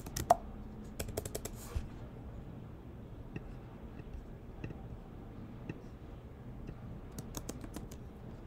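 Computer keyboard typing: quick runs of keystrokes near the start and again near the end, with a few single key clicks in between.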